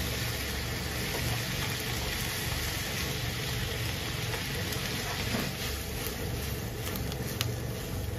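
Cabbage and bacon sizzling in oil in a nonstick frying pan as they are tossed with silicone-tipped tongs, with a few light taps and scrapes of the tongs against the pan, over a steady low hum.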